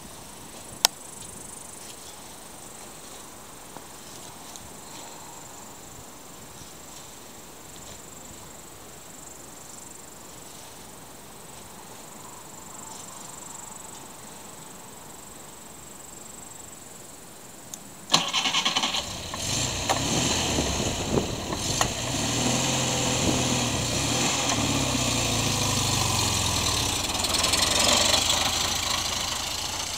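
Low, steady outdoor background with one sharp click about a second in. About two-thirds of the way through, the engine of a home-built car chassis starts abruptly and keeps running, its revs rising and falling.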